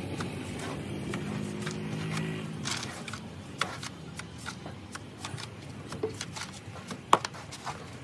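Steel mason's trowel scraping and tapping against a metal mortar pan and the block wall as cement mortar is scooped and thrown on: a string of short clicks and scrapes, with one sharper knock about seven seconds in. A low steady hum fades out over the first two or three seconds.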